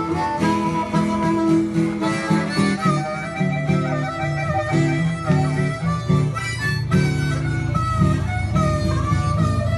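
Blues harmonica played cupped against a hand-held microphone, taking an instrumental break over a strummed acoustic guitar.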